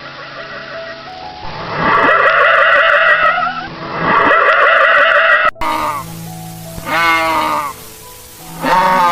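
Farm animals calling over background music: two long, loud, wavering calls about two and four seconds in, then, after a sudden cut, shorter bleats falling in pitch near the end.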